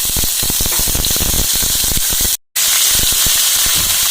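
Raw chicken pieces sizzling loudly in hot oil and chopped garlic, a dense hiss with many crackling pops. The sound breaks off for a moment just past halfway, then carries on.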